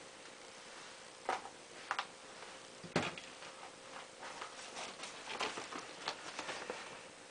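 Small tools and parts being handled at a workbench: a few separate sharp clicks in the first three seconds, then a busier run of light taps and clicks.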